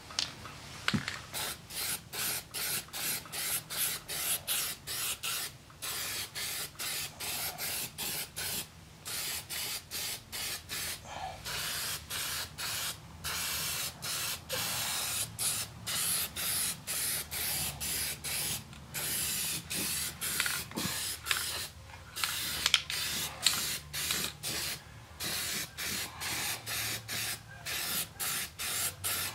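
Aerosol spray can of primer spraying in many short bursts, a hiss cut by brief breaks every second or so.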